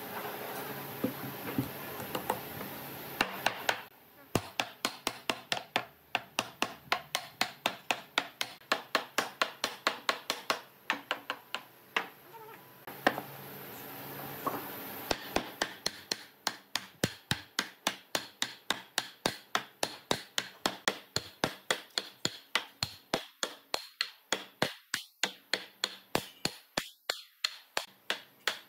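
Wooden mallet knocking on a timber rail and post, light rapid blows at about three a second that drive the joint home, with a short pause partway through.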